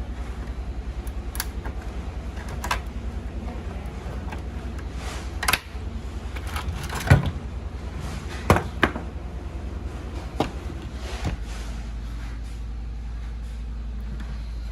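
A steady low hum with a fast, even pulsing, with scattered sharp clicks and knocks, about eight of them, the loudest a little past the middle.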